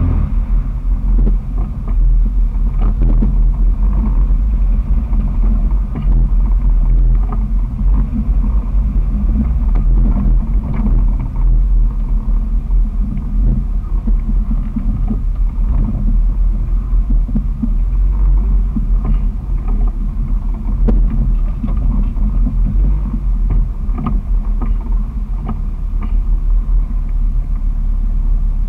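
A 2001 Jeep Wrangler TJ's 4.0-litre straight-six running at low speed on a trail. The exhaust has a muffler-back delete, so it has a loud, uneven rumble, with occasional short knocks and rattles from the body and suspension.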